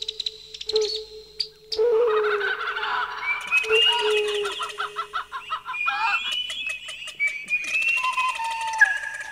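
Birds chirping and warbling together in many quick overlapping calls. A steady low tone sits beneath them for the first few seconds.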